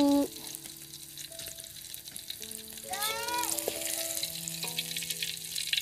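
Pieces of salted patin catfish sizzling in hot frying oil as they are stirred, fried crisp and ready to come out. A short rising-and-falling call sounds once about three seconds in.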